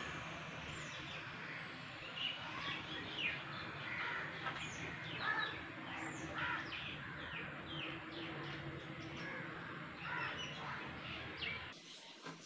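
Birds chirping: many short, quick calls that fall in pitch, over a steady low background hum.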